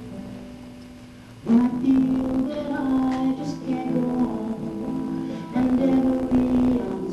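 A woman singing a worship song, accompanying herself on acoustic guitar. The music is quieter at first and grows suddenly louder about a second and a half in.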